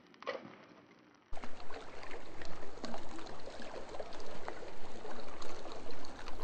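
Near silence with a few faint clicks, then a little over a second in, a sudden cut to the steady splashing of a small stream flowing down a concrete channel.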